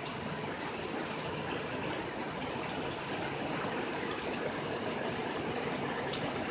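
Heavy rain pouring down in a steady hiss, with no thunder.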